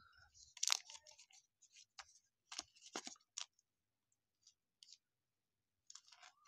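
Baseball cards and a thin clear plastic card sleeve being handled: scattered soft crinkles and clicks, the loudest about a second in, with a few sharper clicks around the middle.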